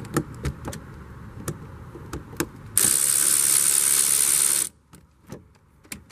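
A few light clicks and knocks of hands and a tool on a plastic mud flap. Then a cordless drill runs steadily for about two seconds, removing the mud flap's fastener in the car's wheel arch, and cuts off suddenly.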